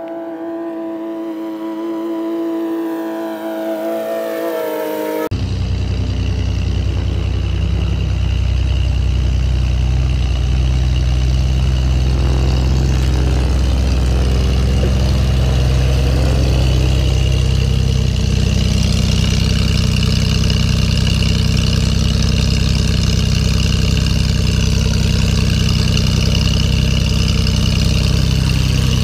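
Propeller aircraft engine running at a distance, then an abrupt change about five seconds in to the homebuilt Saberwing's Corvair-conversion flat-six engine, which grows louder as the plane taxis closer and then runs steadily close by at low power.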